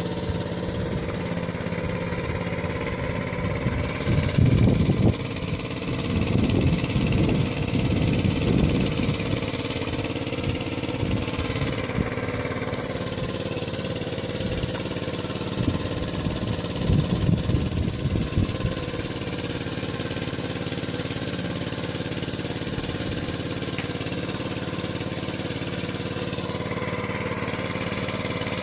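A small engine running steadily at an even speed, with a few louder low rumbles coming and going over it.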